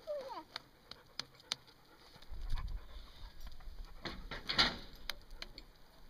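A small child's hand slapping the sawn end of a poplar log: a few sharp separate pats, then a louder flurry of knocks about four and a half seconds in. A short high falling squeal comes right at the start.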